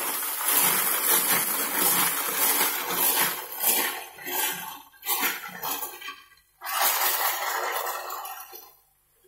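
Kitchen tap water splashing onto clams in a plastic colander as hands scrub them, the shells clinking and rattling against each other; it dies away near the end.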